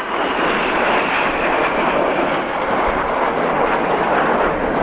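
Formation of Red Arrows BAE Hawk T1 jets flying past, their Adour turbofan engines making a steady, even jet noise.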